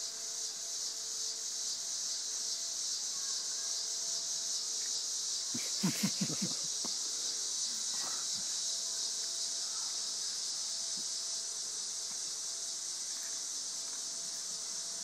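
Steady high-pitched chorus of insects, with a short run of a few low sounds about six seconds in.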